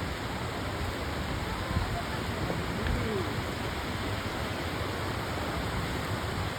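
Steady rushing roar of a large waterfall, an even wash of noise with no breaks.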